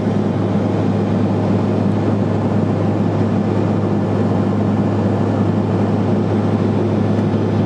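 Steady drone of a Cessna Silver Eagle 450's Rolls-Royce 250 turboprop engine and propeller, heard inside the pressurized cabin in flight.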